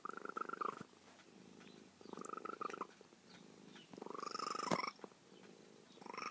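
An old cat purring close up as it is petted, the purr swelling about every two seconds into a louder phase with a high, bird-like tone over it, with softer purring in between.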